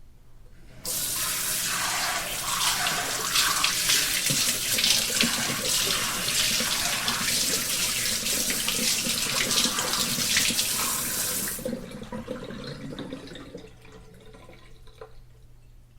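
Shower spray turned on: water starts abruptly about a second in and runs steadily, splashing, for about ten seconds. It is then shut off, leaving a trickle and a few drips that fade away as the water drains.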